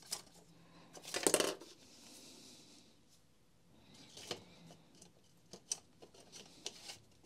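Light metallic clinks and a short clatter, loudest about a second in, as a coil spring and then a sleeve are slid down over the barrel of a Makita HR5001C rotary hammer during reassembly, followed by a few faint clicks of the parts seating.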